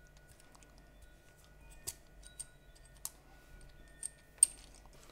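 Small clicks and taps of a camera clamp and its rod mount being opened and handled: about five irregular sharp clicks, the loudest near the end.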